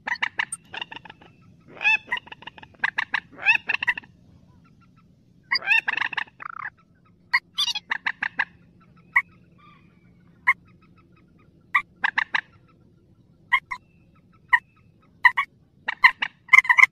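Loud calls of a mandar sawah, a rail of rice fields and marshes: runs of rapid chattering notes in the first half, then short single notes about a second apart.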